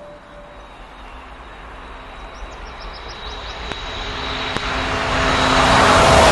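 Rushing noise of an approaching high-speed train, swelling steadily louder, with a faint steady whistle.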